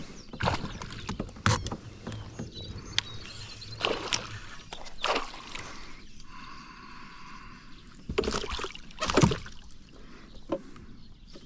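Water splashing and sloshing around a fishing kayak with scattered knocks on the hull while a hooked northern pike is fought. The biggest splashes come about five seconds in and again around eight to nine seconds in.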